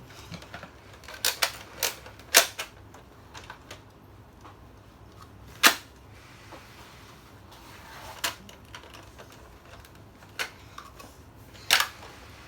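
Nerf dart blaster being primed and fired: about nine sharp snapping clicks at uneven spacing, a quick cluster in the first three seconds and single loud snaps around six, eight, ten and twelve seconds in.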